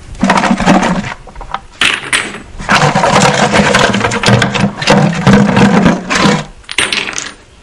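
Chunks of flint clattering and clinking against each other as a hand rummages through a bucket of rocks.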